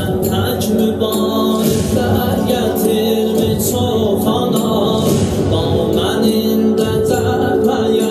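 Background music with singing: a slow song of held sung notes over a low accompaniment that steps from note to note.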